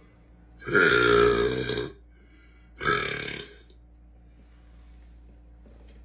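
A man belching twice: a long, deep burp lasting about a second, then a shorter one about two seconds in.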